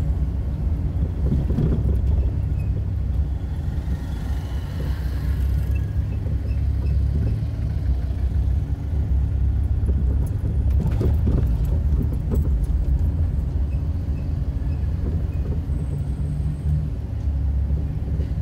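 Car running on the road, heard from inside the cabin as a steady low engine and tyre rumble, with a few short knocks or rattles about eleven seconds in.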